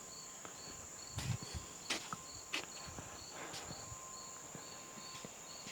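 Insects chirping: one keeps up a steady high trill while another chirps in an even rhythm about two or three times a second. A few brief knocks sound between about one and three seconds in.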